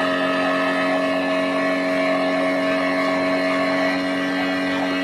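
Yamaha Enduro 40 hp two-stroke outboard motor running at a steady, unchanging speed, with water rushing and spraying past the lower unit and hull.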